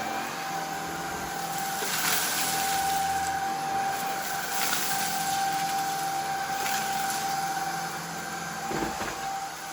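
Shark IZ320UK cordless stick vacuum running on its medium setting, a steady motor whine over the rush of suction air, as it is pushed across the floor. It gets a little quieter near the end.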